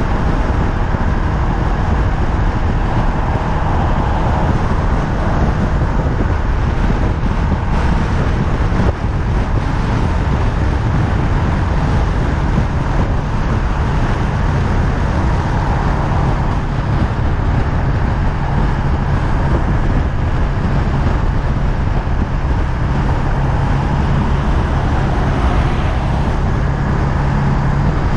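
Honda Rebel 500 motorcycle's parallel-twin engine running at a steady cruise, under heavy wind and road noise. Its low engine hum holds a steady pitch and grows stronger over the last several seconds.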